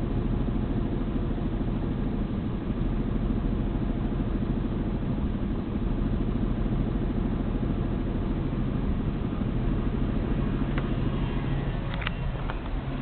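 Isuzu 6VD1 V6 engine idling roughly, a steady low rumble, with a few short clicks near the end.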